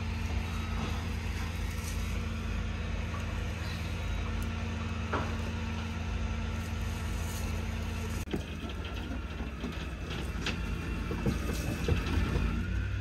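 Flatbed truck's engine running steadily while a car is pulled up onto the bed. About eight seconds in the engine note shifts, and scattered metal clanks and knocks follow.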